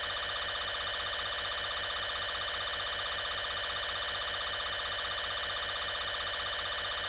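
Steady electronic warning tone, a harsh buzzing sound with many overtones, held at one unchanging level, of the kind used as the alert signal in an emergency broadcast.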